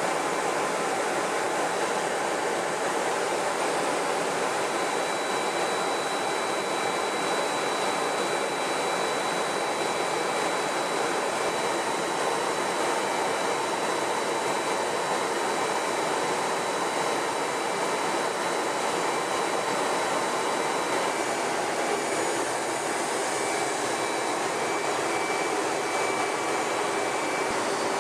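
Jet aircraft in flight: a steady, even rushing noise with faint high whines held over it.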